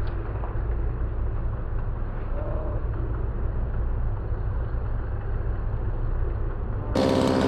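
Caterpillar excavator's diesel engine running steadily with a low rumble. In the last half second a chainsaw cuts in suddenly, running loud with its pitch bending as it revs.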